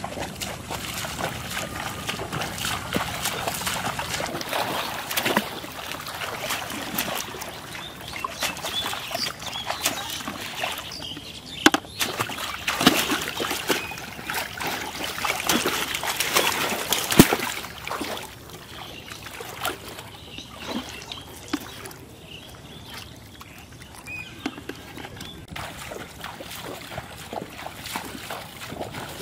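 Water splashing and sloshing, with many irregular small clicks and knocks; busier and louder through the first two thirds, then quieter.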